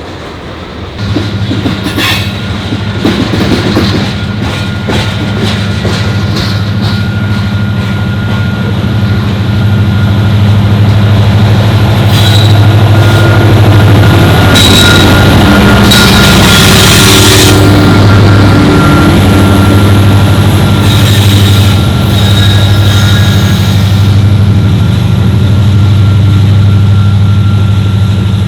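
EMD SD70ACe diesel locomotive working hard under load as a loaded coal train pulls away. The engine drone comes in about a second in and holds steady, while the wheels click over the rail joints and squeal at times.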